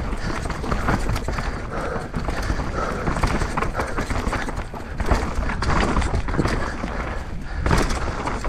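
Downhill mountain bike riding a rough trail: wind buffeting the mounted action-camera microphone over the rumble of tyres on dirt, with frequent irregular rattling knocks as the bike hits bumps.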